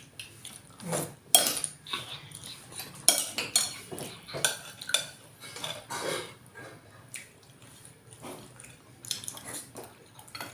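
Spoons and forks clinking and scraping against plates and a soup bowl as food is served and eaten, in irregular light taps throughout.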